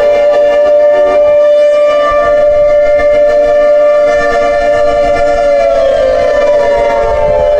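Outdoor civil defense warning siren sounding during a test: a loud, continuous chord of several steady tones, with some of the tones sliding lower in pitch near the end.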